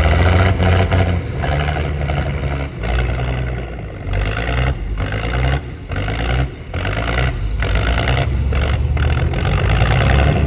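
Ex-military 6x6 army truck's engine running hard and unevenly, its note repeatedly dipping and surging, with a high whine gliding up and down over it.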